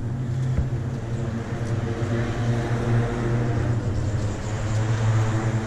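Car tyres humming on the open steel grate deck of a lift bridge, a steady droning tone that swells and eases as vehicles cross.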